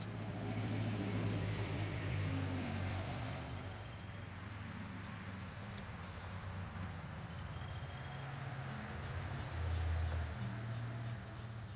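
Insects in the woods giving a steady high-pitched buzz, over a low rumble that swells about a second in and again near the end.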